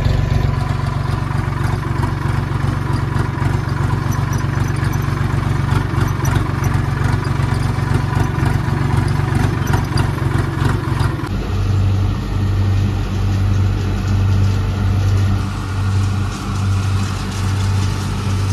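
Diesel tractor engine running steadily, heard from the driver's seat as the tractor is driven. About 11 s in, the sound cuts to a tractor engine heard from outside, with a rhythmic throb.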